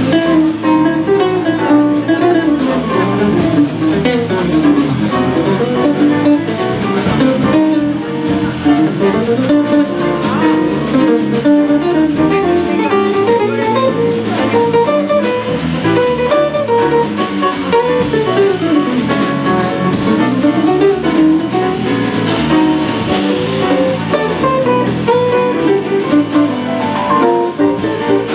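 Live jazz band playing: a hollow-body electric guitar carries running melodic lines over electric bass, a drum kit and piano.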